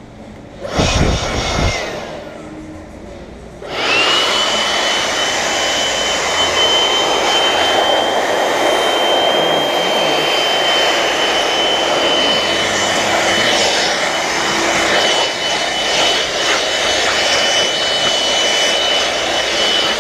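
Shop vacuum starting about four seconds in, its motor whine rising briefly and then running steadily over a loud rush of air. A short loud burst comes about a second in.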